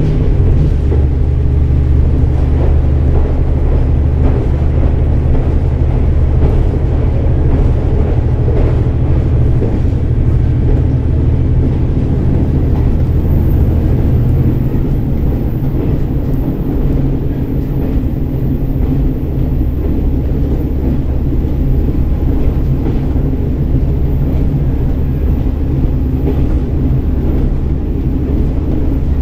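KiHa 47 diesel railcar running along the line: a steady diesel engine drone under the wheel and rail rumble. About 14 seconds in, the engine's low drone drops away and the wheel rumble carries on.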